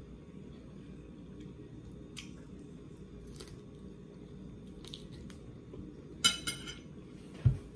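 Quiet chewing with a few soft mouth clicks, then a metal fork clinking sharply against a ceramic dinner plate about six seconds in, and a dull knock near the end.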